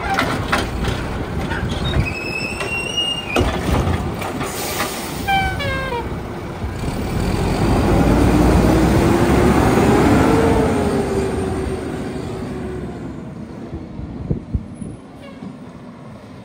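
Mack LE garbage truck's automated side arm dumping a cart: knocks of the cart being shaken into the hopper and a few high metallic squeaks. About halfway through, the diesel engine revs up and the truck pulls away, the sound swelling and then fading as it goes.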